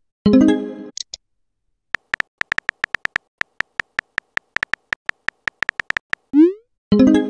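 Chat-app sound effects: a short chime as a message posts, then a run of keyboard tap clicks, about four a second for roughly four seconds, as the next message is typed. Near the end a quick rising swoosh and another chime mark that message being sent.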